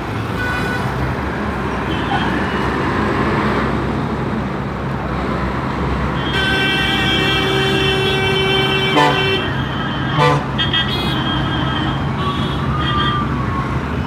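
Heavy diesel engines from a road-milling machine and passing trucks drone steadily amid road traffic. About six seconds in, a vehicle horn sounds one long honk of about three seconds, and several shorter honks follow.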